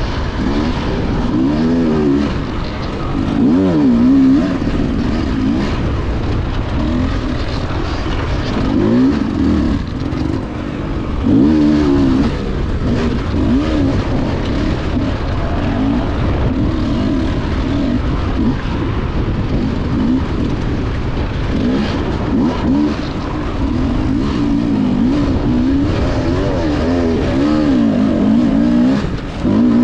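Enduro dirt bike engine revving up and down again and again, heard close up from the rider's own camera.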